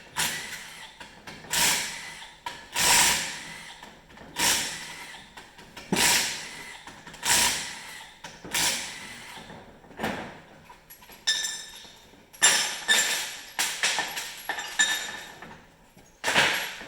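Tools working on a Polaris 680 triple snowmobile engine during teardown: a regular stroke about every second and a half, each starting sharply and fading, with a quicker run of strokes carrying a faint metallic ring about two-thirds of the way in.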